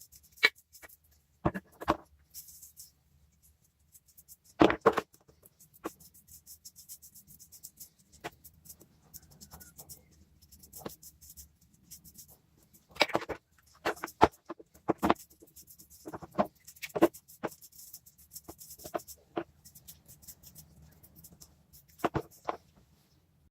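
Irregular metal clicks and knocks of hand work on the parts of a small vise, some strokes sharper and louder than others, with pauses between them.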